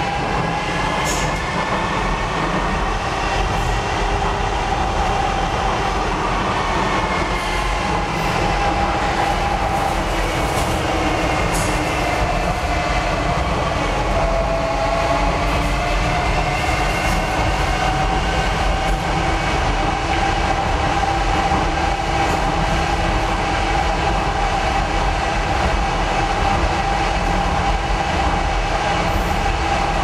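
Docklands Light Railway train running through a tunnel, heard from on board: steady wheel-and-rail rumble with the whine of its electric traction motors. The whine's pitch shifts with speed, dipping about halfway through and then rising again.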